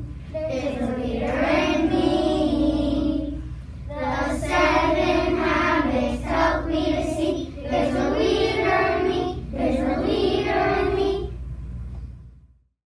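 A class of young children singing a song together in unison, phrase by phrase with short breaks between lines. The singing cuts off abruptly shortly before the end.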